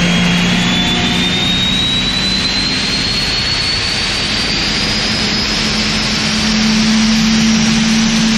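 Drag-racing engine running in a shop, with the high whine of its centrifugal compressor rising steadily in pitch throughout, over a steady low engine drone.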